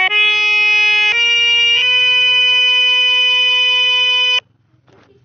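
Keyboard app on a phone playing a short upward run of held notes in a sustained electronic voice, each note steady without dying away. The pitch steps up three times, and the last note is held for about two and a half seconds before it cuts off suddenly.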